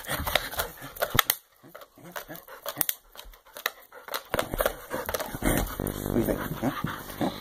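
A black Labrador chewing and tossing a hard chew bone: a run of sharp clicks, crunches and crinkles, thick at first, sparser through the middle, and denser again near the end.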